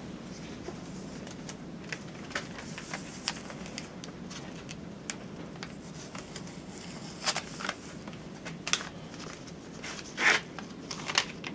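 Handling noise while unpacking: scattered rustles and clicks of packaging and objects being moved, busier in the second half with a louder knock near the end, over a steady low hum.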